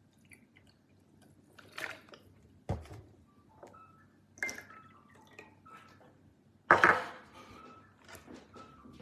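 Irregular water splashes and drips, with a sharp knock about three seconds in and a louder splash near seven seconds in.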